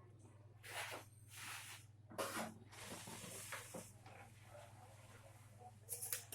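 Several short scraping, rustling noises from hands and tools working on an amplifier circuit board, over a steady low hum.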